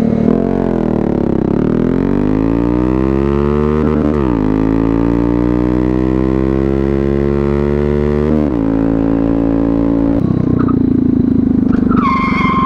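Honda Grom's 125 cc single-cylinder engine running under way: the pitch dips about a second in, climbs, steps at a gear change around four seconds, climbs steadily, then drops sharply and settles to a steady run. A high steady tone with overtones starts near the end.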